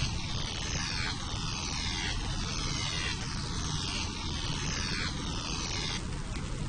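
Electric crackle sound effect for indoor lightning arcs: a hissing buzz that sweeps down in pitch over and over, like a flanged whoosh, stopping about six seconds in. A steady low rumble of storm rain and thunder runs underneath.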